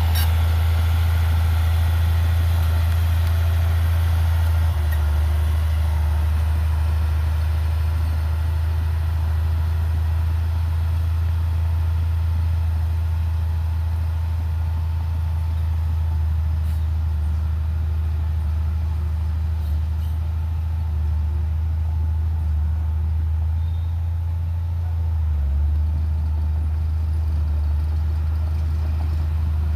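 Heavy earthmoving machine's diesel engine running steadily with a low, even drone that shifts briefly near the end.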